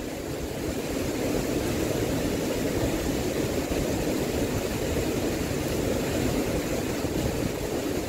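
Strong typhoon wind blowing steadily and buffeting the microphone with an irregular low rumble.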